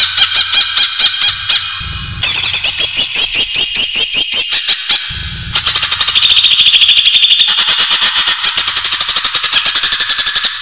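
Cucak ijo (green leafbird) calling: fast trains of sharp, high repeated notes, about five or six a second, in three long runs with brief breaks between them.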